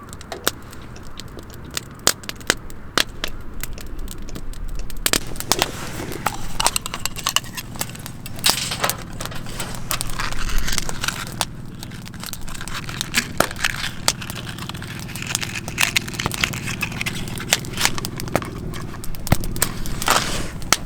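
Wood campfire crackling, with irregular sharp pops and snaps throughout.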